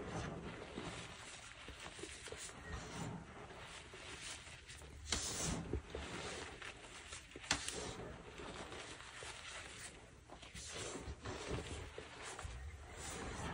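Dyed gym chalk being crushed and crumbled, a continuous powdery crunching and crackling with two sharper snaps about five and seven and a half seconds in.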